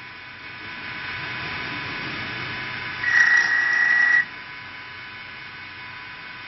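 Mini CNC wood lathe running, turning and drilling a spinning wooden cup blank, its noise growing louder about half a second in. About three seconds in, a loud high-pitched steady tone sounds for just over a second and cuts off suddenly.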